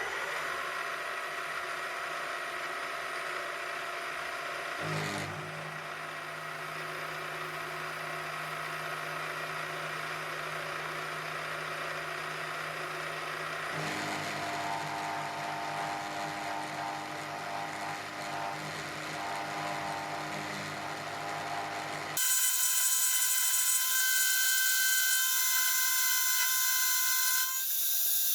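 A milling machine slots a recess into the end of a square tube, with a steady motor hum under the rough cutting noise. About 22 seconds in, the sound cuts abruptly to a thinner, higher whine and the low hum is gone.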